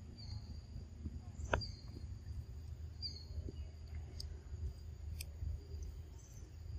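Outdoor ambience: a steady low rumble with a few short, high chirps in the first three seconds, and one sharp click about a second and a half in.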